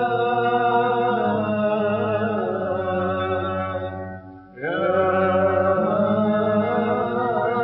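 A male voice chanting an Aleppine funeral lament (tajwiq) in long, ornamented, wavering held notes over a steady low drone. It breaks off briefly a little past halfway, then a new phrase begins.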